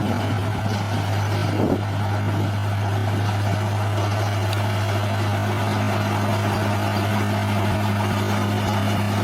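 Bulldozer's diesel engine running at a steady speed, a low even drone; a second, higher steady tone joins about five seconds in.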